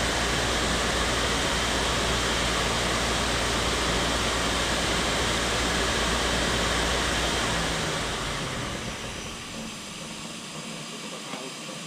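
Hitachi Seiki Super Hicell 250 turning centre's main spindle running at speed, called at 3,500 rpm: a steady loud whirring hiss over a low hum. About eight seconds in it dies down as the spindle runs down, leaving a quieter hiss.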